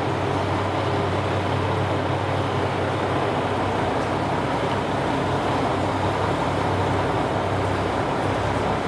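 KiHa 183-series diesel railcar standing at a platform with its engines idling: a steady drone with a low, even hum.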